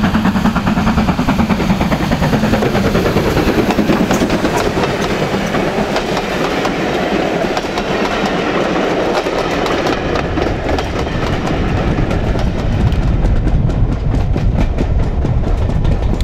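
Steam-hauled passenger train running past, with a rapid rhythmic clatter of coach wheels over the rail joints; the clatter continues, duller, from about ten seconds in.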